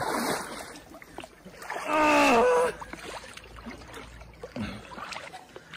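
Water splashing around a man's legs as he wades into freezing glacier water. About two seconds in comes his loud cry, lasting under a second and falling in pitch: a reaction to the cold.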